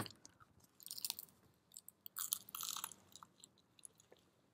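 People biting into and chewing crisp, pan-charred quesadillas, with bursts of crunching about a second in and again around two to three seconds in. A sharp click right at the start is the loudest sound.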